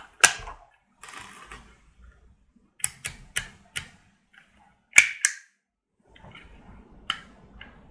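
Sharp plastic clicks and snaps from a handheld Hema embossing label maker being handled and adjusted, about nine irregular clicks, the loudest just after the start and about five seconds in, with faint rustling in between.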